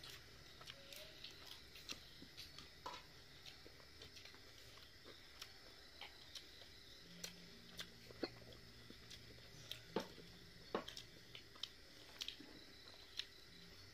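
Faint sounds of a man eating rice and fried fish by hand: chewing and small mouth noises with scattered sharp clicks, the loudest about eight and ten seconds in.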